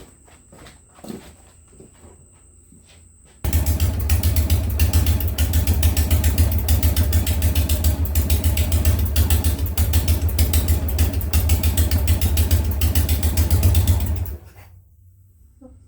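Harley-Davidson Sportster's air-cooled V-twin engine running steadily with an even, rapid pulse, starting suddenly a few seconds in and shutting off near the end, after its top-end rebuild. A few faint clicks before it.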